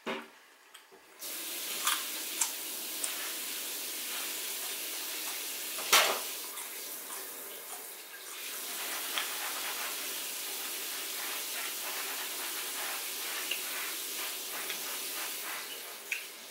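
A steady rushing hiss, like running water, comes on suddenly about a second in and carries on, with a few sharp clicks of eating over it; the loudest click falls about six seconds in.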